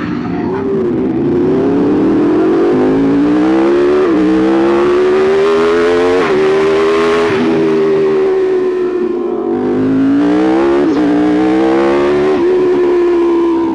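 Aprilia RSV4 1100 Factory's V4 engine accelerating up through the gears: its pitch climbs in each gear and drops at each upshift, about five shifts in all, with a steadier cruise in the middle and wind rush over it.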